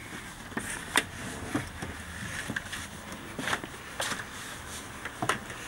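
Footsteps and scuffs on a debris-strewn floor: a handful of short, irregular knocks over a low background hiss.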